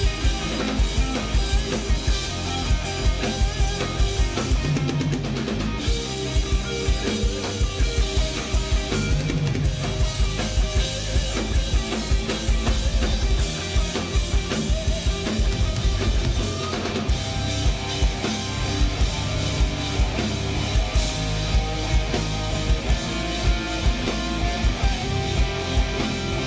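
Live rock band playing loud: electric guitars, bass guitar and a drum kit pounding out bass drum and snare hits in a steady beat.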